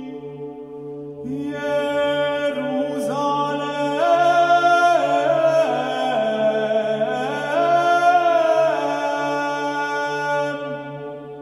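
Gregorian chant, a first-mode offertory: a male soloist sings a slow, flowing melisma that rises and falls in pitch, entering about a second in over a steady low drone held by the ensemble.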